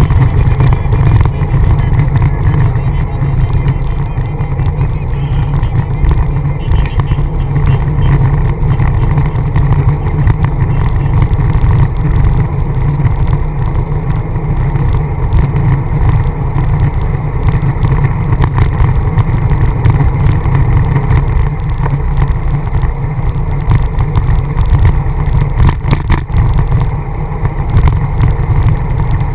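Wind rumbling over the microphone of a handlebar-mounted camera on a moving road bike, a loud, steady low rumble mixed with road noise from the tyres.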